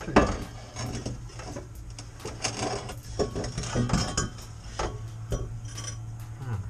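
A metal cat-back exhaust pipe clanking and scraping in irregular knocks as it is worked into place under a car, with a sharp knock just after the start, over a steady low hum.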